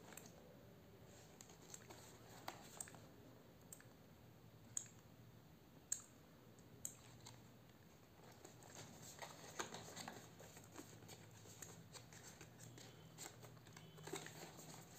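Faint handling of a small cardboard product box and plastic mailer: scattered light clicks and taps, then denser rustling and crinkling from about eight seconds in.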